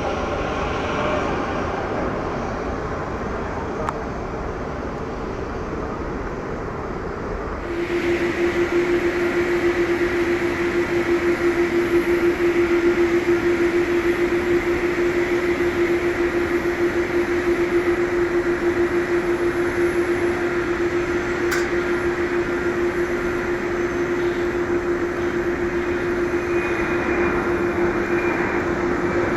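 Steady engine drone; about eight seconds in it abruptly grows louder and a constant low hum with a thin higher whine joins and holds steady.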